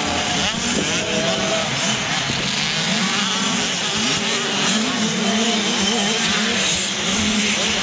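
Several 85cc two-stroke motocross bikes riding round a dirt track, their engines revving up and falling back in overlapping, wavering notes.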